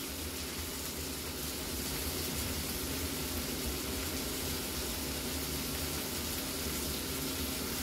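Steady sizzling hiss of shrimp, fish and potatoes frying in a pan on an electric hob.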